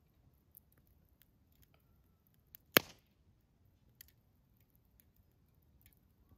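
Campfire crackling: scattered faint pops and ticks of burning wood, with one loud, sharp pop a little under three seconds in.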